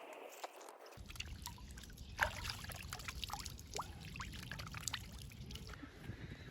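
Water trickling and dripping, with many small splashes and plinks.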